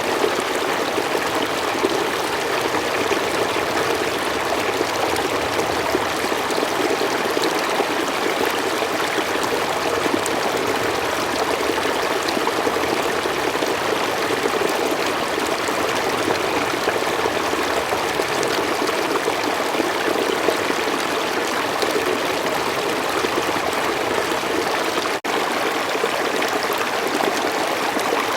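A slow forest stream running steadily: a continuous rush of flowing water, with a split-second dropout near the end.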